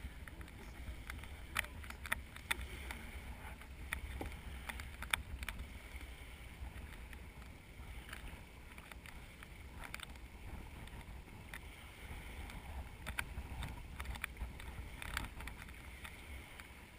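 Water rushing and splashing along the hull of a heeled sailing yacht under way, with wind buffeting the microphone and a few sharp knocks.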